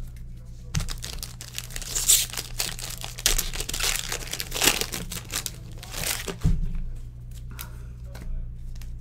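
Plastic wrapper of a football trading card pack crinkling and tearing as it is opened, loudest about two and five seconds in, with a couple of soft thumps.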